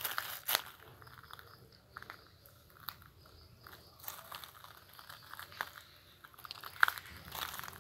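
Footsteps crunching on a gravel path: irregular crunches and rustles, louder at the start, with one sharp crunch about seven seconds in.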